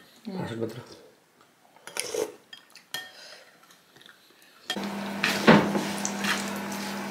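A short murmur, then a spoon clinking faintly as soup is tasted. About five seconds in, croquettes frying in a non-stick pan take over: oil sizzling, a spatula scraping and knocking the pan, over a steady low hum.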